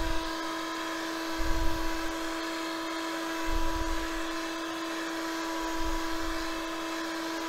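Electric heat gun running steadily, its motor humming at one pitch under the hiss of the blown hot air, as it heats a high-density polyethylene sheet to soften it for bending. A few short low rumbles come through about one and a half, three and a half and six seconds in.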